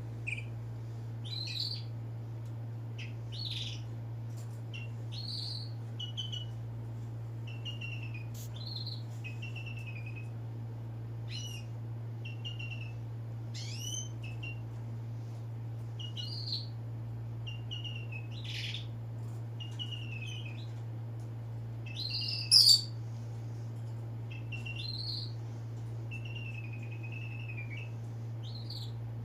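A bird giving short chirps and brief whistled notes, one every second or two, with one louder call about two-thirds of the way through, over a steady low hum.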